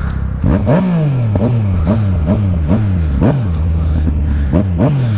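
Yamaha XJ6 inline-four motorcycle engine revved in repeated sharp throttle blips, about two a second, each rev jumping up and quickly falling back, with wind noise on the microphone.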